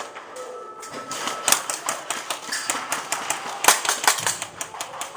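A run of irregular sharp clicks and snaps, several a second, with one louder crack about three and a half seconds in.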